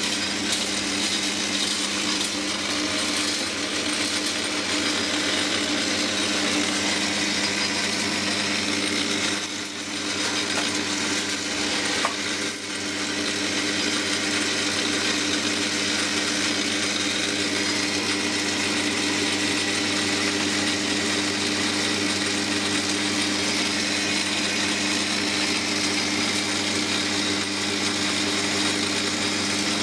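Metal lathe running while it turns a 304 stainless steel shaft, a steady machine hum with a whirr from the spindle drive. A click and a brief drop in level come about ten to twelve seconds in.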